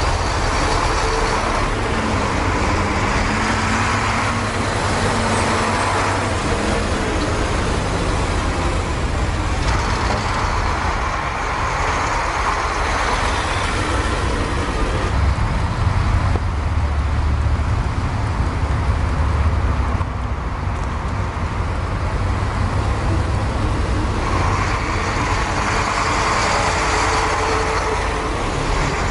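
A column of heavy KamAZ military trucks driving past one after another, their diesel engines running with tyre noise on the road. The sound swells several times as each truck comes close.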